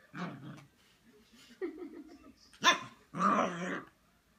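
Six-week-old Siberian Husky puppy barking and growling at its own reflection, in a run of four short outbursts. The sharpest and loudest bark comes a little past halfway, followed by a longer growling bark.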